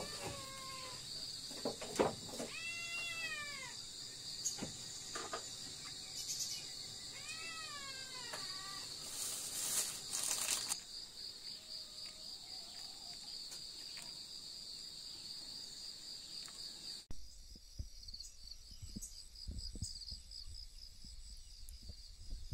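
Crickets and other insects chirring steadily at a high pitch, fainter after about seventeen seconds. Over them come three drawn-out calls that rise and then fall, in the first nine seconds, and a few sharp knocks.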